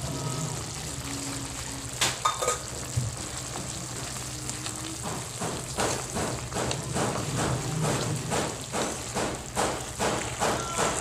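Wooden spatula stirring and scraping against a wok of simmering vegetables, in quick repeated strokes about three a second from about halfway through, over a soft simmer. The freshly added bitter melon is being stirred in to soften it. A single sharp click comes about two seconds in.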